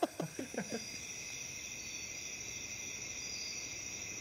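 Crickets chirring steadily in a night-time ambience, a layer of several high, unbroken tones. A voice trails off in the first second.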